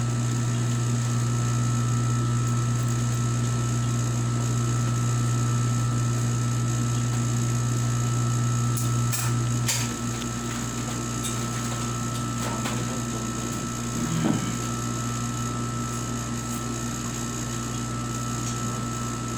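Electric sewing machine running with a steady motor hum. It eases off a little about ten seconds in, with a few clicks around then.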